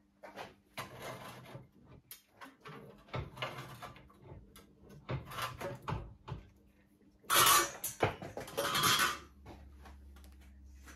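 A thin sheet-metal strip being worked in a bench vise: a string of separate scraping, rattling metal sounds, each about half a second to a second long, the loudest two near the end.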